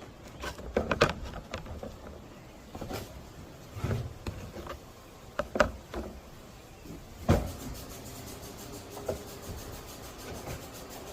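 Wooden frame pieces knocking and clattering as they are handled and fitted together: several separate sharp knocks, the loudest about seven seconds in.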